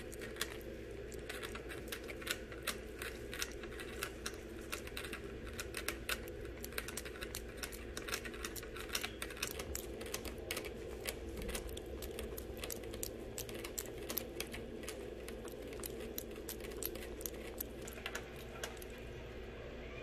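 Shih Tzu puppy licking and drinking from the metal spout of a water bottle hung on its playpen: a fast, irregular run of sharp clicks and ticks, several a second, that stops shortly before the end.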